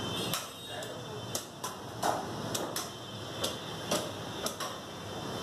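Meat cleaver chopping into a mutton carcass: a series of sharp, irregular chops, roughly two a second.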